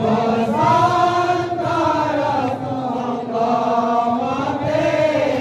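A group of men singing a devotional kirtan chant together, holding long notes that rise and fall.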